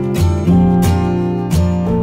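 Background music with a steadily strummed acoustic guitar and a low bass line, in an even rhythm.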